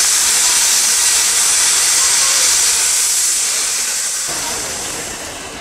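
Steam locomotive's twin safety valves blowing off: a loud, steady hiss of escaping steam, the sign that the boiler is at full working pressure. The hiss eases off and gets quieter over the last second or so.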